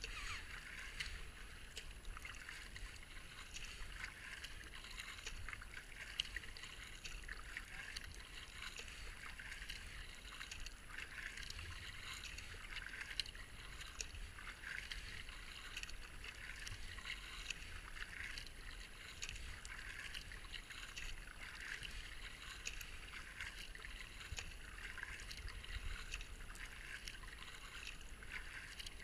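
Kayak paddle strokes and water splashing and gurgling around the hull as the boat is paddled down a shallow, foamy stretch of river, with a low rumble of wind on the microphone.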